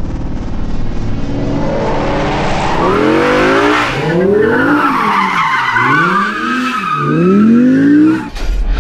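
Audi R8 drifting: the engine revs up and falls back four times while the tyres squeal and skid, and the sound cuts off abruptly near the end.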